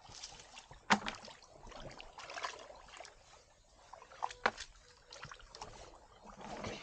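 Hands splashing and sloshing in shallow, muddy water while groping along the bottom, with two sharp, louder splashes, one about a second in and one about four and a half seconds in.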